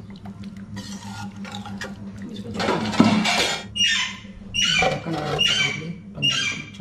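A steel ladle stirring thick, cooked masoor dal in a steel kadai, then an aluminium lid put on the pan, scraping and squeaking against the metal rim several times, over a steady low hum.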